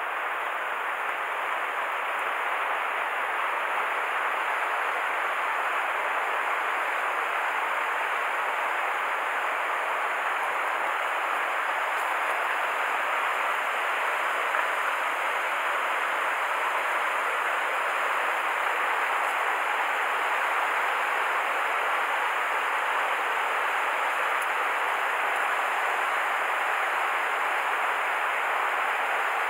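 A mountain stream running over rocks: a steady, even rush of water that holds unchanged throughout.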